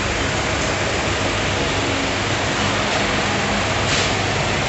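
Steady rushing background noise with a faint low hum underneath, unbroken throughout.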